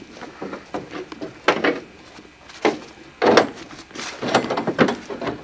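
Irregular knocks, thuds and clatter of hard parts being handled and fitted together by hand.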